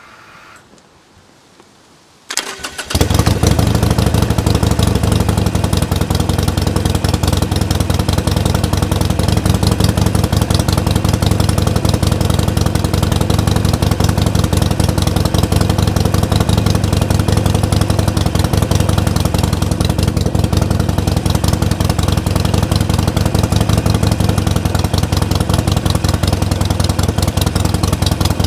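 Harley-Davidson Sportster Iron 883's 883 cc V-twin, breathing through aftermarket silencers, starting about two seconds in and then idling steadily.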